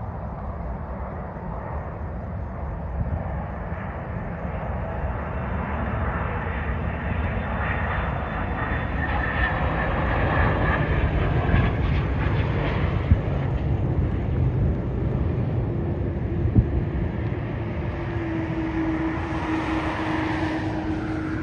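McDonnell Douglas MD-11 jet airliner's engines rumbling as it passes low over the runway and lands, louder toward the middle as it comes closest. Two brief sharp knocks stand out in the second half, and a steady whine with rising hiss builds near the end as it rolls out.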